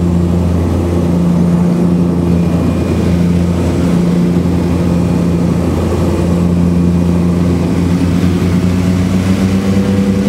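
Cabin noise of a de Havilland Canada Twin Otter in flight: its two Pratt & Whitney PT6A turboprop engines and propellers drone steadily as a deep hum with a higher hum above it, over a rushing hiss. Near the end the drone starts to throb.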